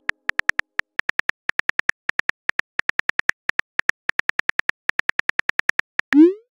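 Smartphone keyboard typing clicks, a quick run of short taps at about eight a second as a text message is typed. A short rising swoosh near the end: the message-sent sound.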